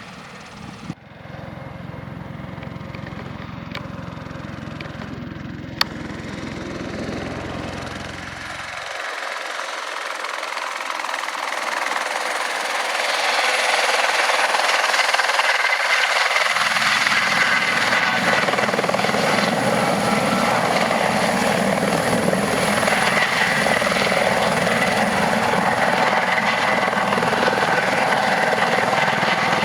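Airbus H130 (EC130 T2) single-turbine helicopter flying: turbine whine and rotor noise that grow louder over several seconds as it comes nearer, then hold steady and loud. A sharp click about six seconds in.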